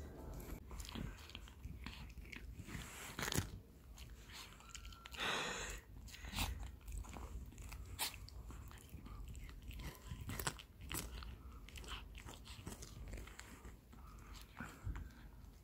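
Chihuahua gnawing and crunching on a whole raw carrot: irregular crunches and chewing, close to the microphone.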